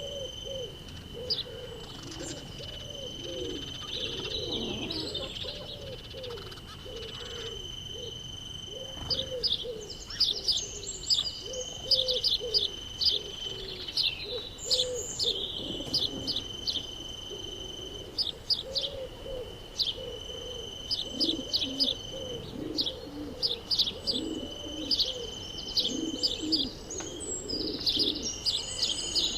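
Birdsong: a dove cooing in repeated low phrases, while small songbirds chirp in quick runs of high notes. A steady high-pitched drone runs underneath.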